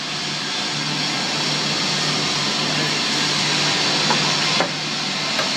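Steady machinery running: an even hiss with a low hum beneath it, which drops a little at about four and a half seconds.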